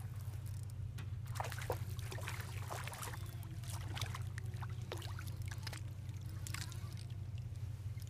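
A hooked white bass splashing and thrashing at the water's surface as it is reeled in, with irregular splashes and sloshes from about a second in until it is lifted out near the end. A steady low hum runs underneath.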